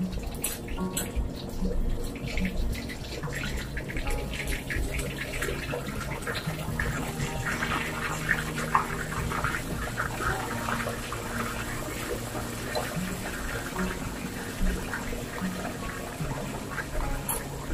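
Tilapia pieces deep-frying in hot oil in a wok, sizzling and crackling steadily, with a wooden spatula now and then knocking and scraping against the pan as the fish is turned.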